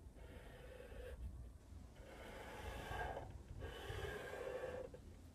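Black Sharpie permanent marker drawn across paper in three strokes, each a faint hiss about a second long, as the sides of a triangular sail are traced.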